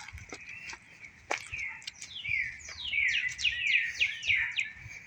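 Songbirds calling from the trees: a few single sharp chirps, then a quick run of down-slurred chirps in the second half. A steady high drone runs underneath.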